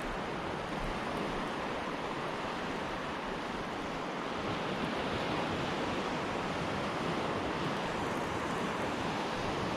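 Steady surf noise: waves washing on a beach, with some wind on the microphone.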